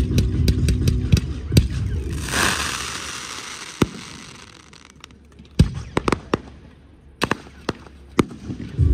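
Fireworks display: aerial shells and comets bursting with sharp reports, with a rush of hissing crackle about two seconds in and then scattered bangs. Accompanying show music is heard in the first couple of seconds and comes back at the very end.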